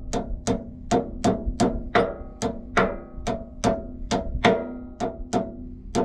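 Hammer blows driving an oil seal into the jack shaft housing of a Lufkin pumping unit, no seal driver used. The blows come steadily, about two and a half a second, each with a short metallic ring.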